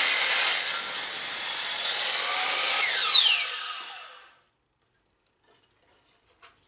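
Miter saw cutting a small piece of wood, its motor running with a steady high whine. About three seconds in the motor is switched off, and the whine falls away as the blade spins down, fading out by about four seconds.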